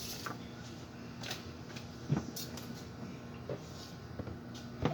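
A few faint, scattered knocks and bumps of objects being handled, the clearest about two seconds in and one at the very end.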